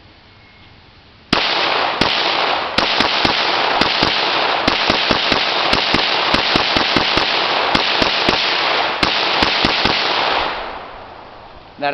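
Semi-automatic PPS-43 pistol (7.62×25mm Tokarev) fired from the hip in a rapid string of about two dozen shots, roughly three a second, starting about a second in and stopping around nine seconds in. The action cycles smoothly through the whole 25-round load without a stoppage.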